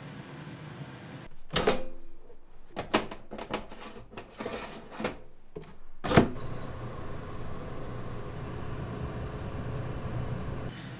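A few clatters and knocks as the pizza goes into a countertop mini oven and its door is shut with a sharp knock about six seconds in, followed by a short electronic beep. The oven then runs with a steady low hum while the pizza bakes, stopping near the end.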